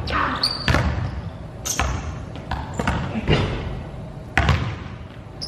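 Basketballs bouncing on a hardwood gym floor about six times at an irregular pace, each bounce echoing around the large hall, with a few short high sneaker squeaks in between.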